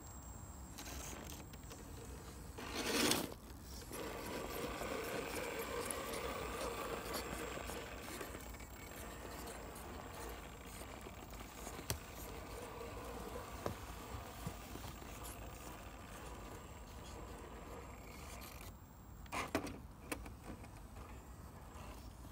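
RC scale rock crawler's electric motor and gears whirring as it creeps up a rock slab, with tyres scraping and ticking on the stone. Two louder rustling bursts come about three seconds in and again near the end.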